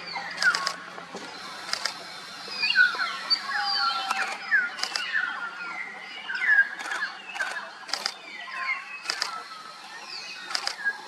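Common hill mynas calling: a busy run of short whistles and quick rising and falling notes, with sharp camera-shutter clicks now and then through it.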